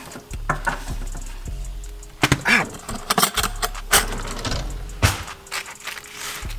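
Clatter and knocks of kitchen handling: a plastic meal tray lifted out of a microwave, cutlery rattled in a drawer, and the tray's plastic film peeled back, over background music.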